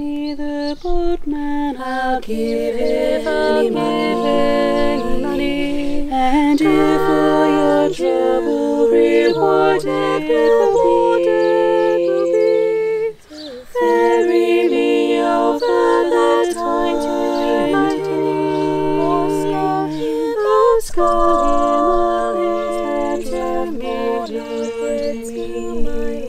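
A women's barbershop quartet singing a cappella in close four-part harmony, slow held chords moving together, with a short pause for breath about halfway through.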